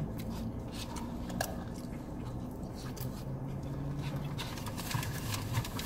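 Quiet eating and drinking sounds: a few light clicks and scrapes of a spoon in a takeaway bowl, with sips through a drinking straw, over a low steady hum.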